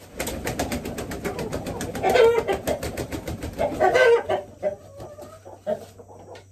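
Rooster being handled, squawking loudly twice, about two and four seconds in, while beating its wings in a rapid flurry for the first four seconds or so. Other chickens cluck around it, more quietly near the end.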